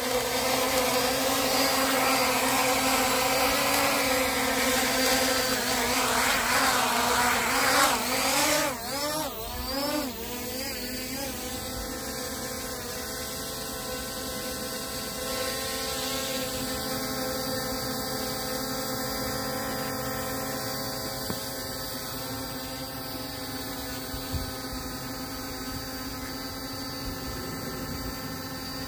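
Small quadcopter drone's propellers whining steadily. About eight seconds in the pitch wavers up and down several times as the rotors change speed, then the whine settles quieter and steady.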